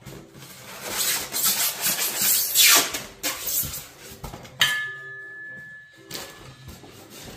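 Polystyrene foam packaging rubbing and scraping as an RC wheel loader is pulled out of its foam case, loudest in the first half, with a sharp click about halfway through and a short scrape near the end.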